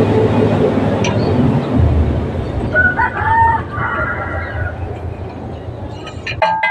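A rooster crowing once, about three seconds in, over a steady low rumble, with a few sharp clicks near the end.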